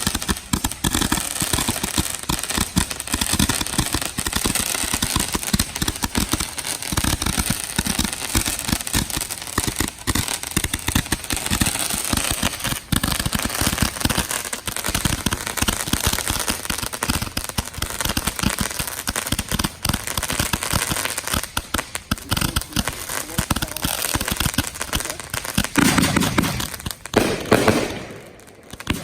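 Professional fireworks show going off: a dense, continuous crackling and popping of many rapid reports. A heavier burst comes near the end, then the firing briefly eases.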